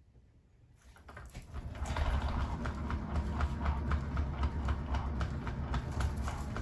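Hand-spun paint-pouring turntable spinning up under a wet acrylic pour: it starts about a second in, then runs with a low rumble and a regular clicking, about three to four clicks a second.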